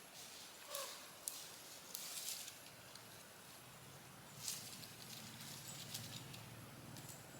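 Quiet, irregular footsteps crunching and rustling through dry leaves and brush, a few steps at a time. A faint low hum comes in about halfway through.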